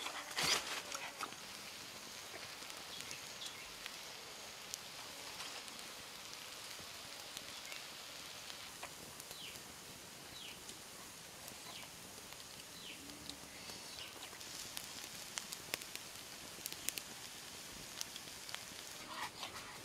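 A wood fire crackling faintly under shrimp roasting on a flat stone, with scattered small pops and ticks.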